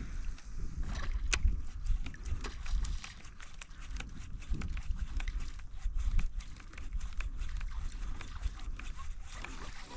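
Wind buffeting the microphone in uneven low gusts, with light water lapping and many small ticks against a kayak hull.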